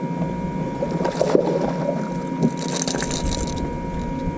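A hooked bass splashing at the surface for about a second, around three seconds in, as it is reeled up and lifted out of the water, over a steady hum and a wash of wind and water noise.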